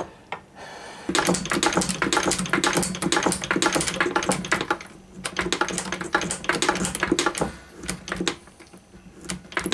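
Hand-powered Drummond Bros shaper taking a finishing cut on a small metal clamp. Rapid clicking and scraping runs as the tool is worked across the workpiece, with a steady low ringing underneath. There is a short pause about five seconds in, and a few scattered clicks near the end.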